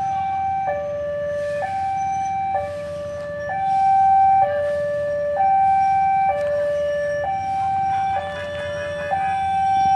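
Level-crossing warning alarm sounding a two-tone high-low pattern, each tone held about a second, warning that a train is approaching the crossing. A low rumble runs underneath.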